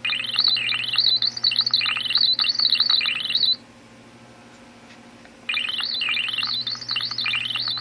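Casio MA-10 alarm clock's electronic beeper sounding in fast warbling, chirping tones, in two bursts with a pause of about two seconds between them. The glitching output is a sign of the failing clock's circuit, which behaves as if circuit bent.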